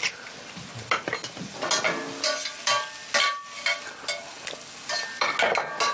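String beans and sliced shallots sizzling in a sauté pan, stirred and tossed with a metal spatula that scrapes and clinks against the pan over and over.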